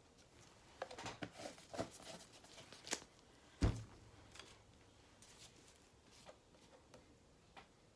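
Handling noises at a worktable: a quick run of light clicks and rustles, one heavier knock a little past the middle, then a few faint taps.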